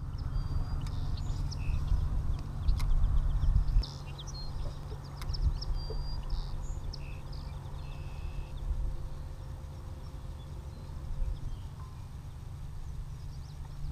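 Birds chirping in short, scattered calls over a steady low rumble, which is louder for about a second around the 3-second mark.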